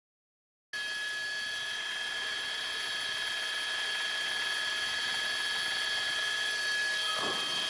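A steady mechanical whirring with a high, constant whine, cutting in abruptly just under a second in, with a quick downward sweep near the end.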